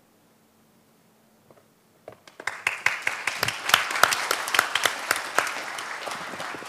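Audience applauding. The clapping breaks out about two seconds in after a quiet start, quickly becomes dense, and goes on steadily.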